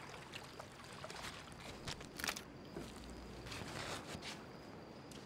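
Quiet poolside ambience: soft water splashes and lapping from someone swimming, with a few scattered short knocks or steps and a faint steady high-pitched tone.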